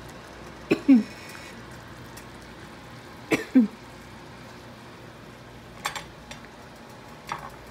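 Several short knocks of kitchen utensils on a stainless steel pot and a cutting board, the first with a brief metallic ring, over a steady low hum. Brief voice sounds follow the first two knocks.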